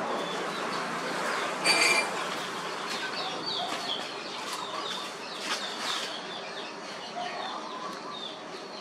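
Birds chirping in short, repeated, falling notes over a steady background hiss, with one brief louder squawk about two seconds in.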